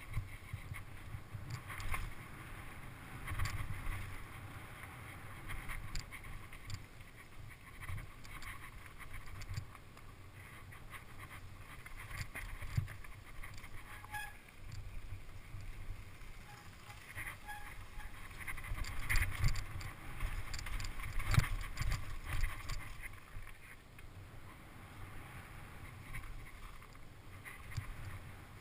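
Mountain bike riding fast down a dirt forest trail: tyre noise on dirt and gravel with many irregular rattles and knocks from the bike over roots and rocks, and wind rumbling on the microphone. The knocks come thickest and loudest around twenty seconds in.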